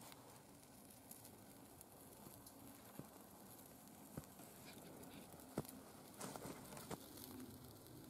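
Small twig fire burning in a metal pot, faint, with a few scattered sharp crackles and pops over a soft hiss.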